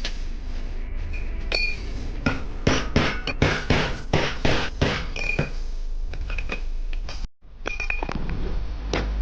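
Small metal parts clinking and knocking as a tool is taken apart and worked on by hand, many sharp taps, some with a short ring.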